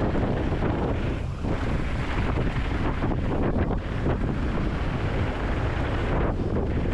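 Wind buffeting the microphone of a camera on a mountain bike riding fast downhill, with the rumble of the bike and its tyres on the dirt trail mixed in. The rushing noise is steady and loud, with a brief dip about a second in.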